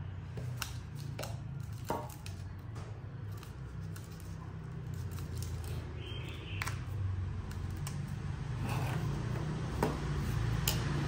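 Scattered light clicks and knocks of a broken, rusty cordless drill's housing and battery pack being handled and set against a metal worktop, over a steady low hum.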